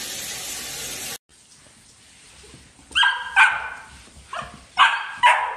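A puppy barking in short, high barks at a floor mop, about five barks in the last two and a half seconds. Before that, a steady hiss cuts off abruptly about a second in.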